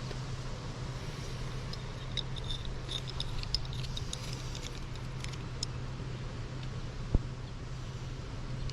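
Hand tools being handled and set down, with light scattered metallic clinks and one sharp knock about seven seconds in, over a steady low hum.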